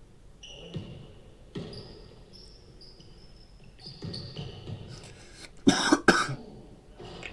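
A man coughs twice in quick succession about six seconds in, the loudest sound here. Underneath is quieter basketball game audio with ball bounces and short high squeaks.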